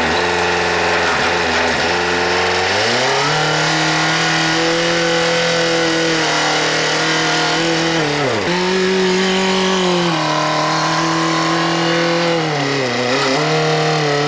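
Telehandler engine running, its revs rising about three seconds in and dipping briefly twice as the boom and hay grapple are worked.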